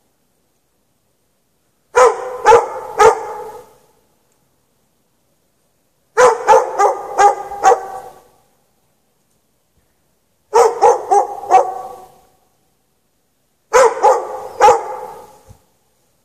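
A dog chained outdoors barking in four bursts of three to six sharp barks, with a pause of a few seconds between bursts and a short echo fading after each one: persistent nuisance barking that goes on for hours.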